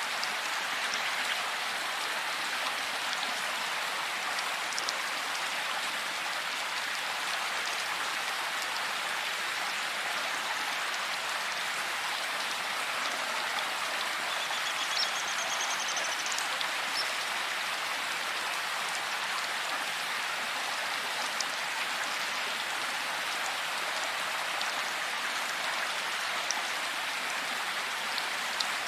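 Steady rain falling, an even hiss with scattered individual drops ticking through it. A brief faint pulsed chirp sounds about halfway through.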